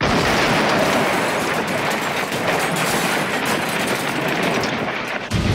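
Train crash sound effect: a loud, continuous din of crashing, clattering metal and rattling wagons that starts abruptly, with a low boom near the end.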